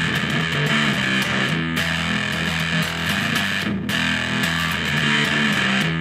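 Electric guitar played through a DIY Unshaven Fuzz pedal in its default configuration, with a 2N5089 transistor in place. It gives a continuous, heavily distorted fuzz tone as the notes are played.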